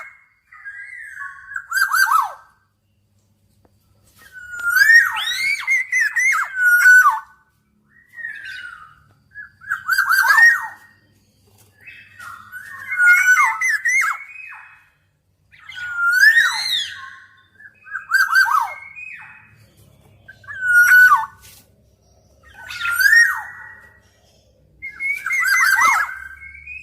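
Black-naped oriole singing: about ten fluty, gliding whistled phrases, each one to three seconds long with a harsh edge, repeated with short pauses between.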